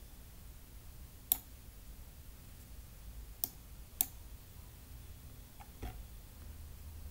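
A handful of sharp computer-mouse clicks, about four, spaced unevenly over a faint steady background hiss.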